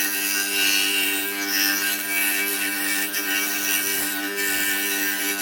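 Power saw cutting duck shapes out of half-inch pine: a steady motor hum with the even noise of the blade in the wood.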